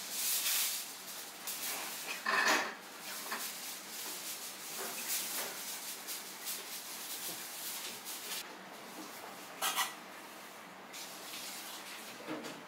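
Food being handled in a ceramic bowl: soft rustling and scraping, with a few short clicks, the loudest about two and a half seconds in and again near ten seconds.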